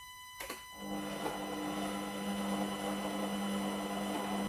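Bosch Cookit kitchen machine running steadily while cooking, its 3D stirrer turning at speed 4 at 100 °C: an even low hum that starts about a second in, after a single click.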